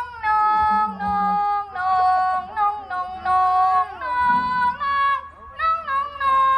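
A high voice singing a Thai likay melody through a handheld microphone, holding long steady notes that step and slide from pitch to pitch, with short breaks between phrases.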